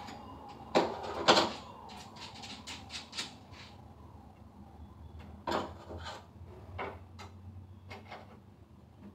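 Knocks, clicks and light scrapes from hands working inside the storage compartment of a wooden box bed. The two loudest knocks come close together about a second in, followed by scattered lighter taps.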